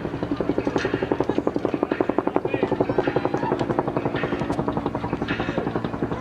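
Helicopter rotor beating steadily: a rapid, even chop of blade slaps, with faint voices underneath.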